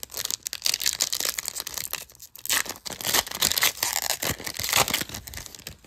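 Foil wrapper of a basketball trading card pack torn open by hand, crinkling and crackling in a dense run that dies down near the end.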